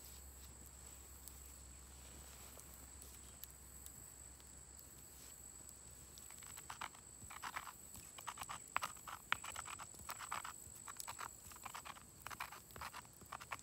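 Wheat grains being ground by hand on a rough granite grinding stone. The grinding starts about halfway through as irregular gritty scraping and crunching strokes with small clicks, after a quiet first half.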